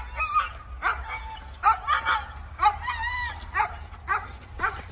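A dog giving a rapid string of short, high-pitched yips and whines, about two or three a second, with one longer drawn-out whine about three seconds in.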